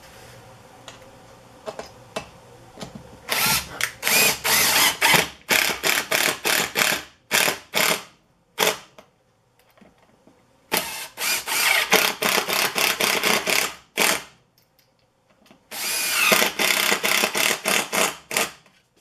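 Cordless drill-driver driving screws into hardwood, in three runs of quick stop-start spurts of the motor with short pauses between them.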